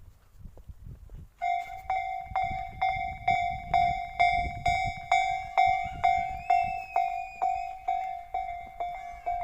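Japanese level-crossing warning bell starts up about a second and a half in and keeps ringing: a single clear tone struck about twice a second, each stroke dying away quickly. It signals that a train is approaching and the barriers are coming down.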